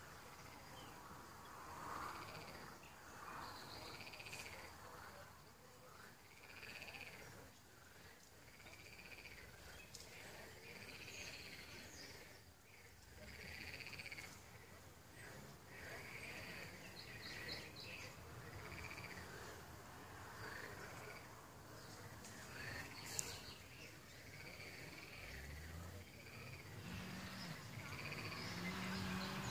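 Faint frog calls repeated about once a second over a steady high insect trill. A low hum comes in near the end.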